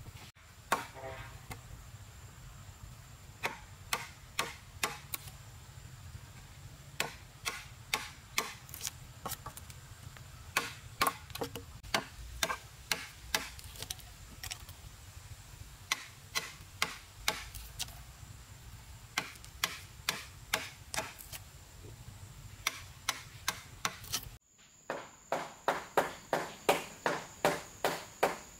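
Hammer striking a wood chisel, chopping a mortise into a solid timber beam: sharp knocks at uneven intervals, then near the end a quicker, even run of about three strikes a second. A steady high insect chirr, like crickets, runs underneath.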